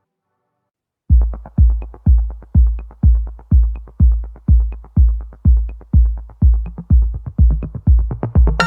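Electronic dance music with a heavy kick drum beating steadily about twice a second, starting about a second in after a moment of near silence; more synth layers join near the end.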